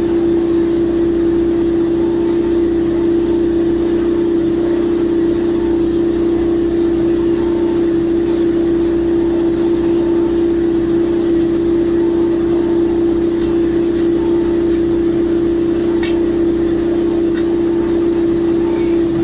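Sheet pile driving machinery running under load with a loud, steady hum held at one unchanging pitch.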